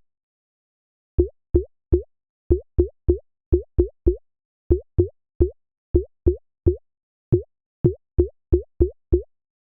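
Synthesized water-drop sound from a Bitwig Poly Grid patch, triggered over and over: short plops, each a quick upward-gliding tone over a brief low thump. After a silent first second they come about two or three a second at uneven intervals.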